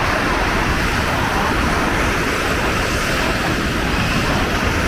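Steady rushing noise of ocean surf breaking on the beach, with wind on the microphone.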